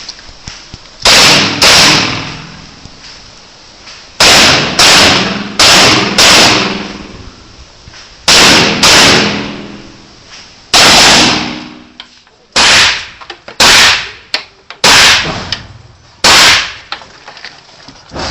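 M1 rifle firing semi-automatic shots, about thirteen loud reports, most in quick pairs roughly half a second apart, each followed by a decaying echo.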